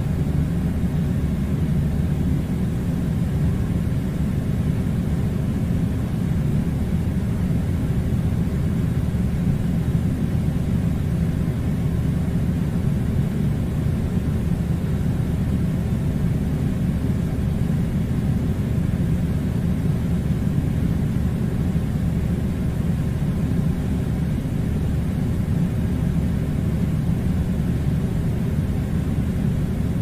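Air conditioner running with a steady, unchanging low rumble.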